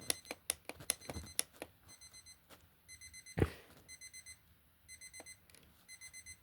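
Elgin electronic travel alarm clock sounding its alarm: short high beeps in quick groups of four, repeating about once a second, after a run of sharp clicks at the start. A single louder knock about three and a half seconds in.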